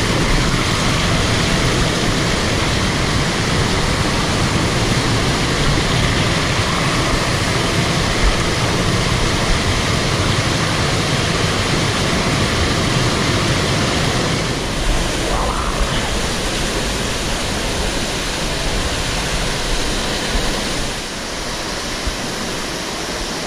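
Mountain torrent water rushing through a narrow rock chute and small cascades: a loud, steady rush that eases a little near the end.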